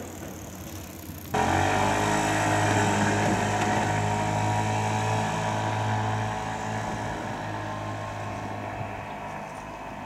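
A vehicle engine running with a steady low hum, starting abruptly a little over a second in and slowly fading.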